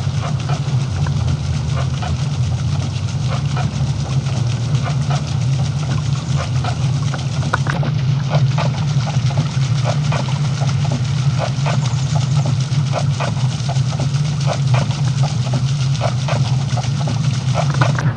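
Water splashing and running off a small ornamental wooden water wheel, with many short light clacks at uneven intervals, over a steady low hum.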